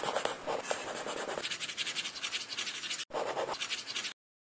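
Sketching sound effect: a pencil scratching rapidly on paper. It breaks off for an instant about three seconds in, resumes, and then cuts off suddenly.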